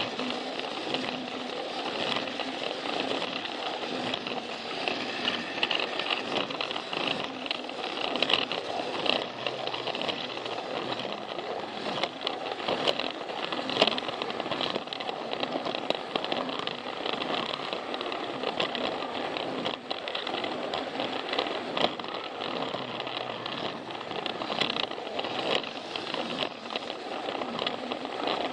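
Plarail battery-powered plastic toy train running along plastic track, a steady rattling clatter made of many small clicks.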